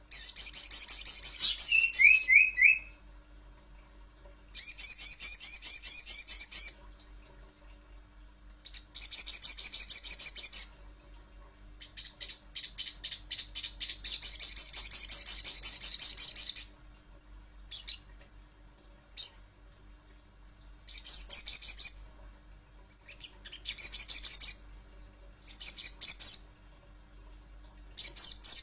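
Crimson sunbird (sogok ontong) song: bursts of rapid, very high-pitched twittering trills, each lasting one to a few seconds and repeated after short pauses, with a few single short chirps between them. A faint steady low hum runs underneath.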